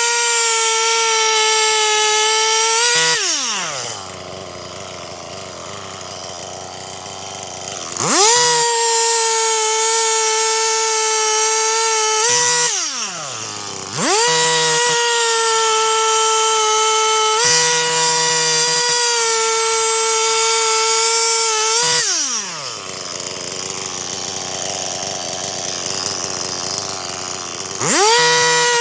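Stihl MS 261 C-M two-stroke chainsaw running at full throttle, dropping back to idle three times with a falling pitch and revving straight back up each time.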